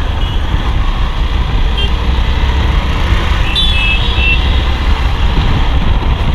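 Motorcycle running on the move through traffic: a steady rumble of engine and wind noise on the rider's camera, with a few short high-pitched beeps from the traffic around, near 2 and 4 seconds in.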